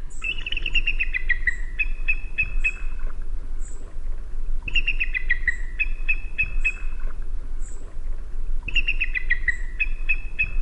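Bald eagle calling: a quick run of high chirping notes falling in pitch, then a few short clipped notes, the whole call heard three times about four seconds apart, played back from a recording over a steady low hum.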